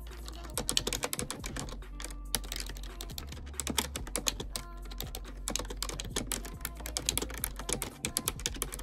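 Rapid, irregular clicking of keys being typed on a computer keyboard, several strokes a second.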